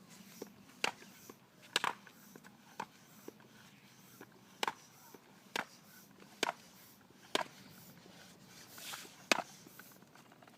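Hand air pump being worked in steady strokes, each stroke giving a sharp click about once a second, pressurising the cannon's air chamber toward 60 psi. A short hiss of air comes near the end.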